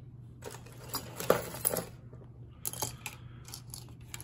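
Handling noise: two runs of small clicks, taps and rustles as a lever lock cutaway and the things around it are picked up and moved, over a steady low hum.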